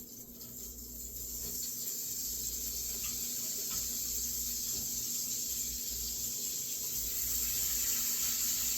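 Wet green beans sizzling in hot bacon grease in a frying pan: a steady hiss that builds over the first couple of seconds and then holds.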